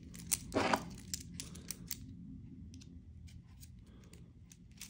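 Carbon fiber link band being fitted onto an Apple Watch Ultra: a quick run of small clicks and a brief scrape as the band's connector slides into the watch's band slot, with sparser clicks after about two seconds.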